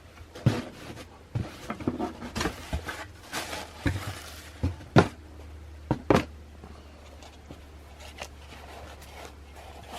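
Handling noise from sneakers and their packaging: irregular rustles, taps and knocks, with the sharpest knocks about five and six seconds in. After that only a steady low hum is left.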